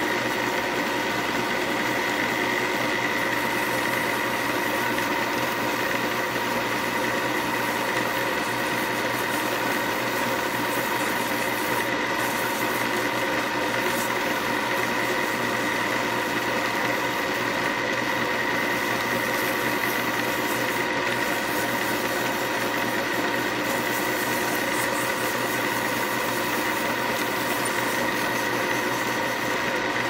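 Wood lathe motor running steadily with an even whine, spinning a snakewood pen barrel on a mandrel while abrasive paper is held against the turning wood.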